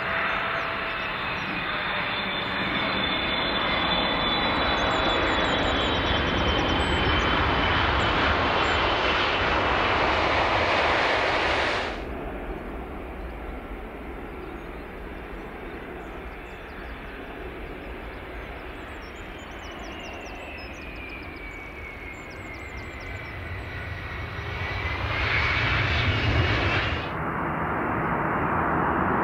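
Jet airliners landing, in clips cut together. A loud jet engine roar with a high whine falling in pitch cuts off suddenly about twelve seconds in. A quieter approach follows, its whine gliding down and swelling, before another sudden cut near the end to the next landing.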